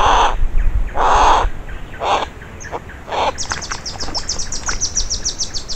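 Harris's hawks calling: four harsh, rasping screams about a second apart, the first two loudest. After them comes a fast run of high ticking notes, about nine a second.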